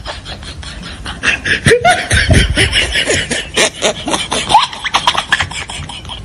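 A person laughing and giggling in quick bursts, getting louder about a second in.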